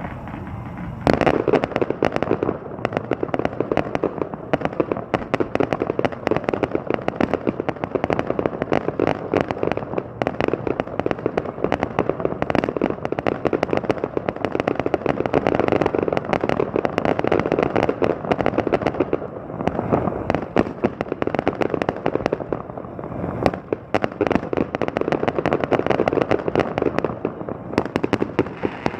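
Fireworks display: a dense, continuous barrage of bangs and crackling that starts about a second in, with two short lulls near the end.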